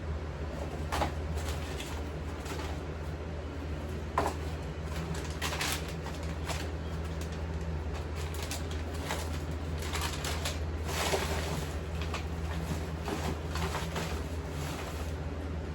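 Rustling, shuffling and light knocks of trash and clutter being picked up off a bedroom floor, over a steady low hum.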